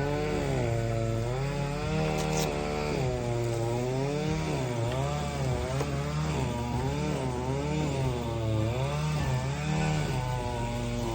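Two-stroke string trimmer (weed whacker) engine running under load, its pitch rising and falling about once a second as it cuts through tall grass.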